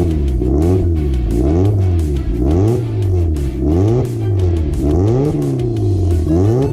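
Mazda MX-5 Miata's 1.6-litre four-cylinder engine through a very loud race exhaust, revved in quick throttle blips about once a second, its pitch rising and falling each time. Background music plays underneath.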